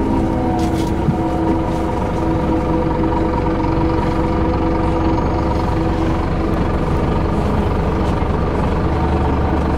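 City bus engine and road noise heard from inside the passenger cabin: a steady low rumble with a faint constant hum.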